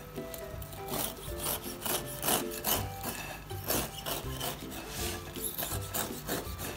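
A long kitchen knife sawing back and forth through a sponge cake to split it into layers: soft rasping strokes, about two a second.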